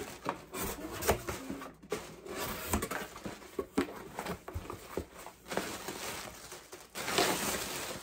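Cardboard shipping box being opened and handled: flaps rubbing and scraping, with knocks of cardboard. A louder crinkle of plastic air-pillow packing near the end as it is pulled out.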